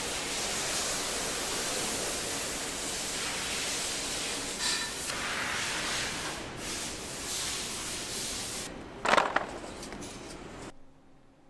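A steady hiss, with a brief sharp clatter about nine seconds in as the loudest moment. The hiss then fades and stops shortly before the end.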